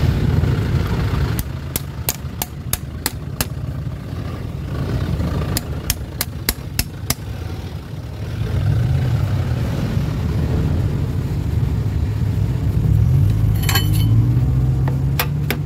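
An engine running steadily with a low rumble, louder in the second half, overlaid by two quick runs of sharp taps a few seconds apart.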